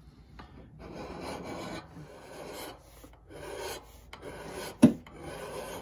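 Steel flat file draw-filed along the edge bevel of an axe head, about four long rasping strokes, as the bevel is brought out to the edge. A single sharp click, the loudest sound, comes near the end.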